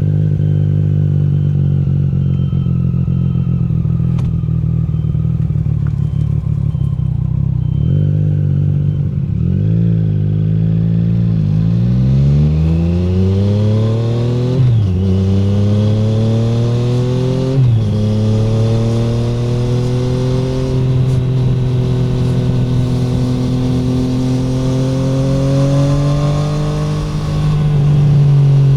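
2017 Triumph Street Triple 765R's inline three-cylinder engine through an SC Project SC1-R titanium exhaust with no dB killer: idling steadily, then blipped a few times before pulling away. The pitch rises under acceleration with two upshifts, each a sudden drop in pitch, then the engine runs on at a steadier, slowly climbing speed.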